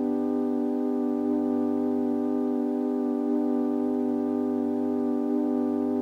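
Electronic keyboard holding one sustained chord, steady and unchanging, like a drone.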